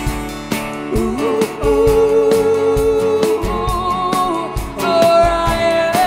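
Live band playing: strummed acoustic guitars and a drum kit keeping a steady beat, with a voice coming in about a second in on long held notes.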